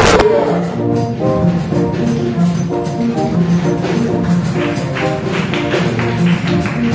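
Instrumental praise music with a quick run of keyboard or band notes and a beat. A tambourine or other percussion keeps time, coming in more plainly about halfway through.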